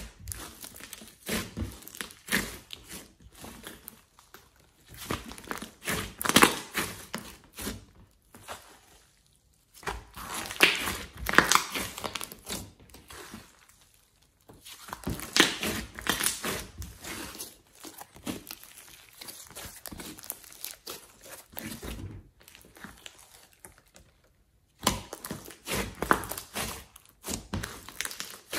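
Hands kneading, pressing and stretching a large mass of glossy slime mixed with clay and foam beads (floam): wet crackling and squishing as trapped air pops, coming in bursts with a few short silent breaks.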